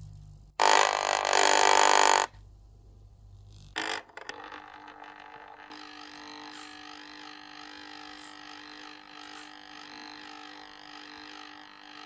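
A small disc magnet scraping against a metal edge: a loud, harsh rasp lasting about a second and a half, then a second short scrape. After that comes a steady sci-fi drone made of several held tones.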